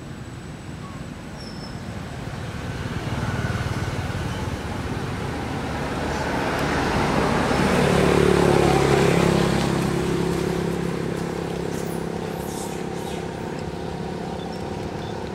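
A motor vehicle passing: its noise swells to a peak about eight seconds in, then a steady engine hum carries on.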